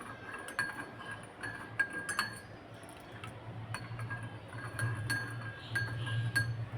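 A metal spoon clinking against the cup of freshly boiled herbal kadha while stirring in a spoonful of honey: a dozen or so irregular light clinks, each leaving a short ring.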